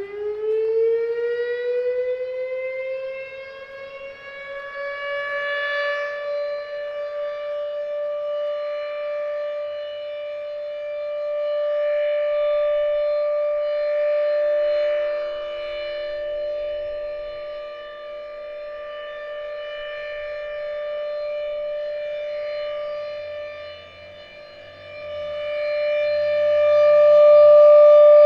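Federal Signal RSH-10 rotating outdoor warning siren sounding a steady alert tone. It finishes winding up in pitch over the first couple of seconds, then holds one steady note, swelling and fading in loudness as the siren head rotates.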